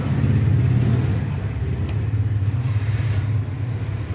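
Steady low mechanical rumble, like a vehicle engine or traffic running nearby. A light click a little under two seconds in, then a brief rustle.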